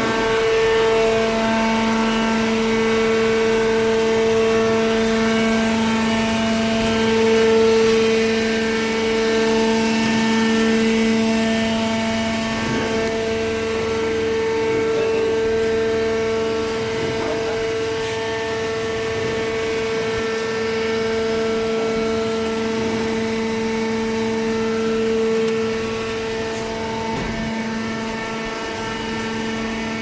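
Electric motor and hydraulic pump of a horizontal baler running with a steady hum and whine, easing slightly near the end.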